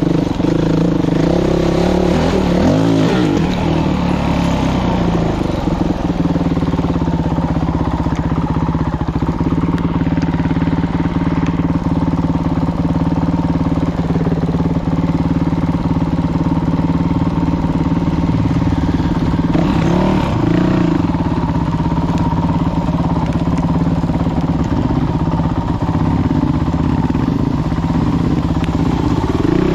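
2019 Honda CRF450L's single-cylinder four-stroke engine running at low, fairly steady revs as the dirt bike rides a trail. Small throttle changes come about three seconds in and again about twenty seconds in.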